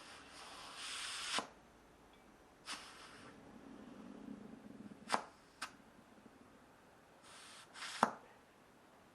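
Hand work on a tractor tyre: five sharp knocks and clicks spread over several seconds, two of them about half a second apart, with short spells of hissing noise in between.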